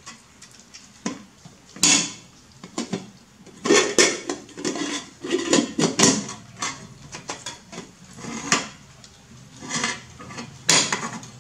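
Dishes clinking and clattering: a run of sharp knocks and clinks that come in irregular clusters every second or two.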